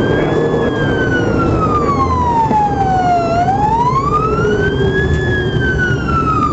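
Police siren on a slow wail, its pitch rising and falling over a cycle of about four and a half seconds, with the road and engine noise of the moving squad car beneath.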